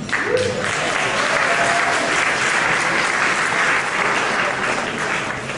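Large seated audience applauding in a hall, steady clapping that fades away near the end.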